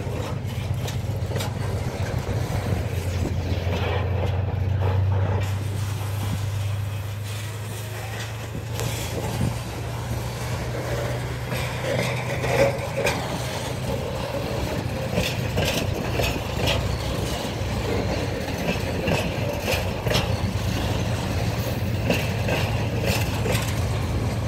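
Freight hopper wagons rolling past, wheels clicking and clattering on the rails, over a steady low drone from the 2TE10M diesel locomotive's two-stroke 10D100 engines working hard at the head of the train.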